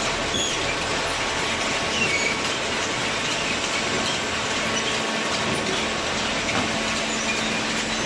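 Steel slat chain conveyor of a waste-paper baler running with cardboard on it: a steady metallic rattle with brief high squeaks.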